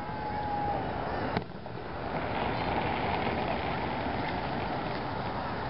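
Aerial fireworks at a public display: one sharp bang of a shell bursting about a second and a half in, after a short whistling tone at the start, over the steady noise of the crowd and open air.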